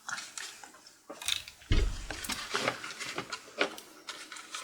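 Clicks, taps and rustling from hands and tools working on the inside of an opened laptop, moving its internal cables and parts, with one heavier knock against the case nearly two seconds in.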